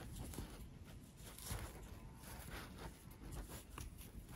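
Faint rustling and soft scratching of yarn being pulled through a crocheted flower and drawn around an elastic hair tie by hand.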